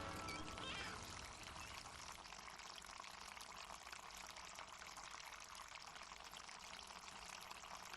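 Harbor water lapping and washing, a faint steady noise, with a few faint seagull calls in the first second.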